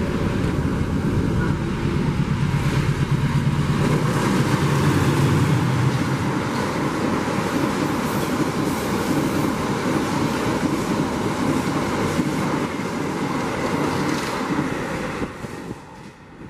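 A diesel-hauled passenger train passing at speed. A low engine drone comes as the locomotive goes by in the first few seconds, then the steady rush of the coaches' wheels on the rails, which fades near the end as the train recedes.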